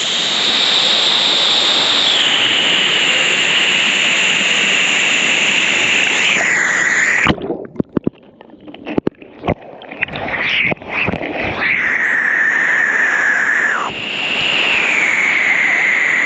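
Loud, steady rush of river water tumbling over rocks. About halfway through it turns muffled for several seconds, broken by sharp splashes and gurgles, before the rush returns.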